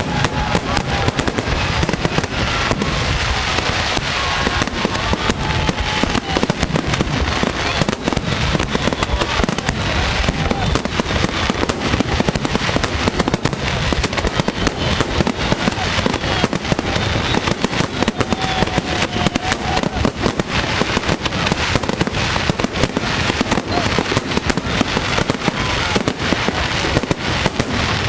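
Aerial fireworks bursting in a dense, continuous barrage, a rapid string of bangs and crackles with no let-up.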